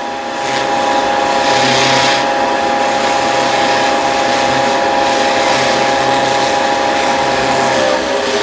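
Vicmarc VL300 wood lathe running steadily with a hum from its motor, coming up to speed about half a second in and starting to wind down at the very end.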